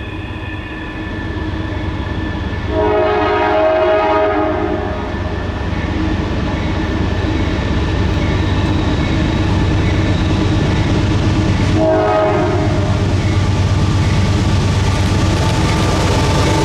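Norfolk Southern diesel freight locomotive approaching and sounding its air horn: a long blast about three seconds in and a short one near twelve seconds, over a steady engine rumble and rail noise that grow louder.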